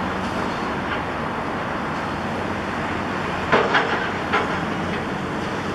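Kobelco SK200 excavator's diesel engine running steadily under hydraulic load. A little past halfway come three sharp clanks in quick succession, the bucket knocking against the steel pile that it is pressing into the ground.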